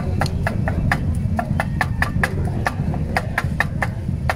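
Stone pestle knocking against a stone molcajete while mashing avocados for guacamole: quick ringing clicks, about five a second, over a steady low background rumble.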